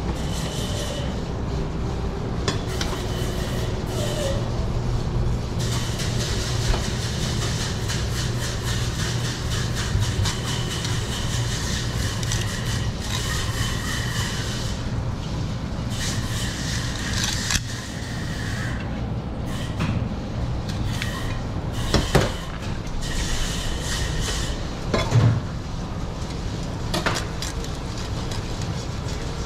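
Large knife slicing and scraping through a whole yellowfin tuna on a plastic cutting board, with a few sharp knocks as the fish and blade meet the board, over a steady low hum.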